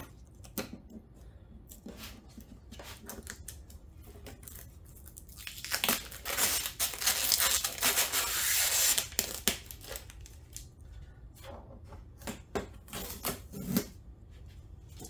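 Strips of blue protective tape being peeled off a printer's plastic casing: short rips and crinkles, with one long, steady peel from about six to nine seconds in.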